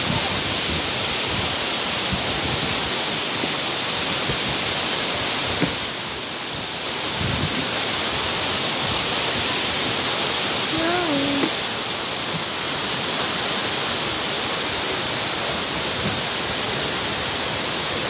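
Steady rush of a mountain waterfall and its rocky stream, a constant hiss of falling water, with a brief faint voice about eleven seconds in.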